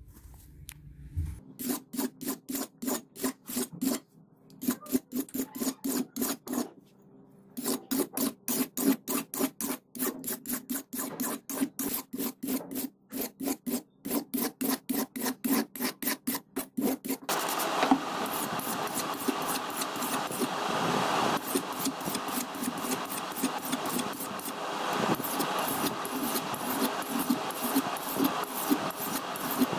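Steel knife blade stroked back and forth on a whetstone: a rhythmic scrape about three times a second, with two short pauses. About 17 seconds in it turns into a continuous, denser grinding scrape of the blade on a coarse red stone.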